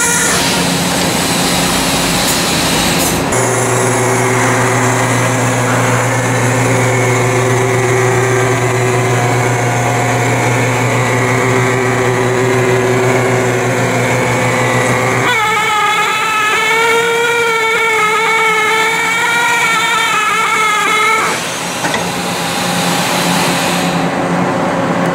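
Industrial strip-line machinery with an induction heating unit running during post-weld annealing of steel strip: a steady loud hum with held whining tones. The tones shift about three seconds in, and about fifteen seconds in a wavering higher whine comes in for roughly six seconds.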